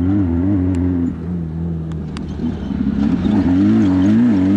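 Off-road race vehicle's engine running hard, its revs wavering up and down, easing off about a second in and building again from about three seconds, with a few sharp clicks over it.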